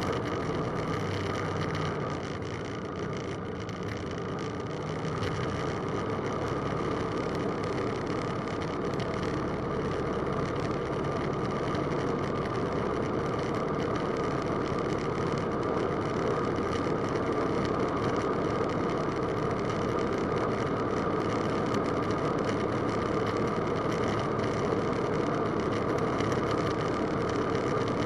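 Roland Aircraft Z602 ultralight's piston engine and propeller running at takeoff power, a steady drone heard inside the cockpit through the takeoff and initial climb.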